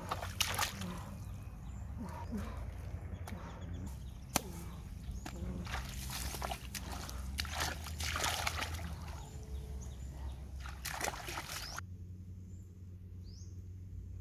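Shallow muddy water sloshing and splashing irregularly as a person wades through it and gropes in it by hand, over a steady low rumble; the splashing stops for the last couple of seconds.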